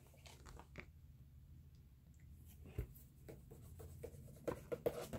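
Paper picture book being handled: faint paper rustles and light taps, with a few sharper ones about three seconds in and near the end.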